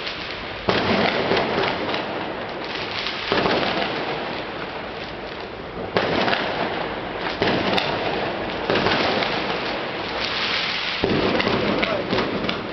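Fireworks display bursting in dense, continuous crackling volleys. A fresh, louder salvo begins about every two to three seconds.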